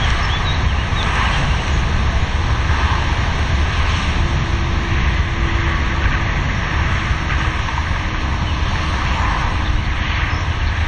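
Steady low rumble and hiss of distant motorway traffic, holding an even level throughout.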